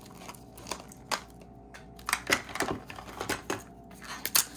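Small plastic Mini Brands capsule wedge being handled and pried open: a string of irregular plastic clicks and snaps, the loudest about two seconds in and again just before the end.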